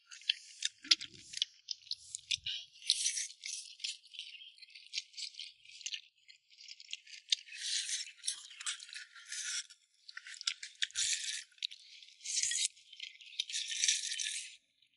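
Close-up crunchy chewing of crisp food, coming in irregular crackly bouts with short pauses between.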